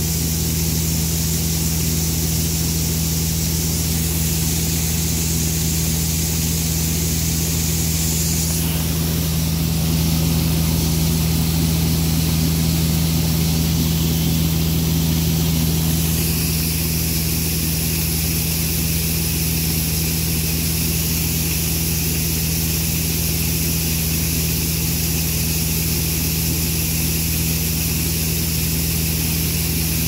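Case IH 1660 Axial-Flow combine running under load while harvesting corn: a steady diesel engine and machinery drone with a high hiss on top. The hiss changes character about a third of the way in and again about halfway through.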